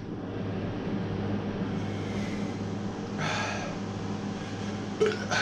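A man breathing hard against the burn of extremely spicy food: one heavy breathy exhale about three seconds in and a short sharp breath near the end, over a steady low electrical hum.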